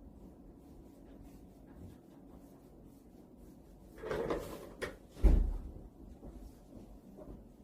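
Handling noises during a chiropractic adjustment: a short rustle and a click about four seconds in, then one heavy low thump.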